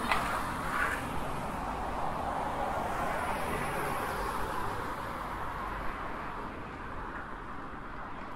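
Road traffic: a car's engine and tyre noise swells as it passes, then fades away.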